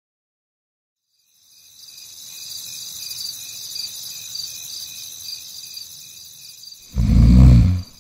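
Crickets chirping, a rapid high-pitched pulsing chirp setting the night-time scene, starting after about a second and a half of silence. Near the end a loud, deep sound cuts in for under a second.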